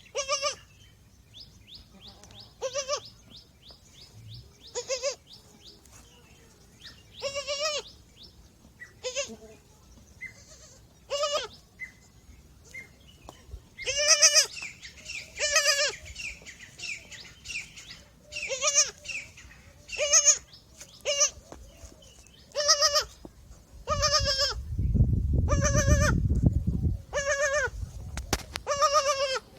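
Newborn goat kid bleating over and over, short high calls about every one to two seconds. A bird twitters in a quick run early on, and a low rumbling noise comes up for a few seconds near the end.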